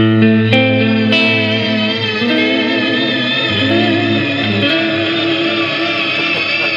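Clean electric guitar played through an EarthQuaker Devices Astral Destiny octave reverb pedal: a few picked notes at the start, then held notes under a long, shimmering reverb wash with wavering high octave tones above them.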